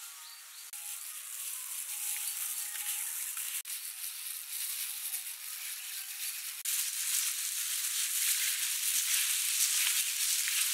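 Thin plastic gloves rustling and crinkling as hands squeeze and mix moist shredded fruit in a plastic bowl: a dense, crisp rustle, louder over the last few seconds.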